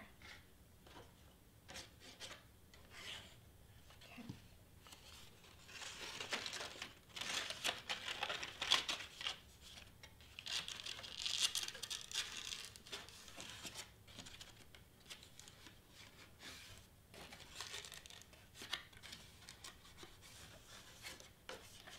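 White cardstock rustling and rubbing under the hands as pieces of a paper box letter are pressed and fitted together, in irregular scuffs with a few light taps. The rustling is loudest in two stretches in the middle.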